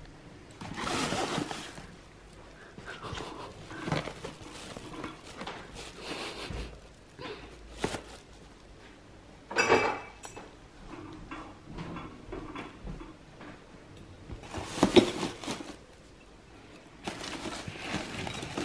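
Items being packed into a fabric backpack by hand: rustling of the bag and of foil-wrapped food, with small knocks, and a sharp clink with a short ring about ten seconds in.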